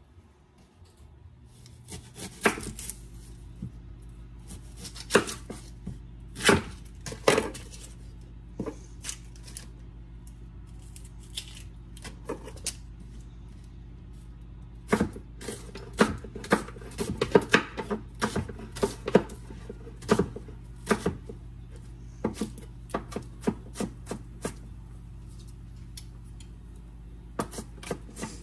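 A chef's knife chopping onion on a wooden cutting board: irregular strikes of the blade on the board, coming quickly in a run about halfway through, over a steady low hum.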